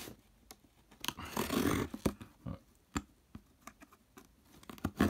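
X-Acto knife blade drawn along the taped seam of a cardboard shipping box, slitting the packing tape: short scratchy scrapes with a scattering of sharp clicks and taps, the longest scrape about a second and a half in.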